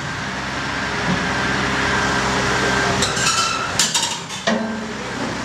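Hitachi Zaxis 700 excavator's diesel engine running as its steel crawler tracks creep along a low-loader trailer deck. Metal clanks from the tracks come about three seconds in, just before four seconds and again about four and a half seconds in.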